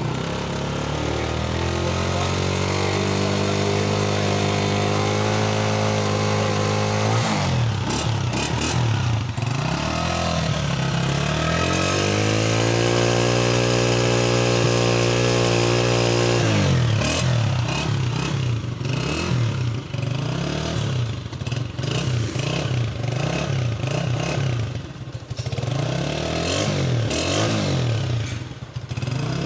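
Honda CG125's single-cylinder four-stroke engine revved up and held at raised revs, dropping back about seven seconds in, then revved and held again. Through the second half it is blipped in quick short revs, rising and falling over and over.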